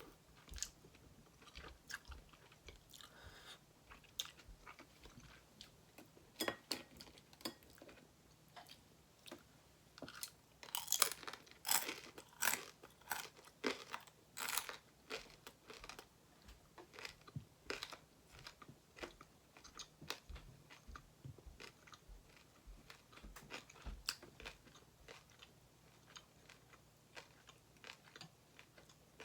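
A person chewing and crunching food close to the microphone, with many short crisp crunches. A run of louder crunches comes about eleven seconds in and lasts a few seconds.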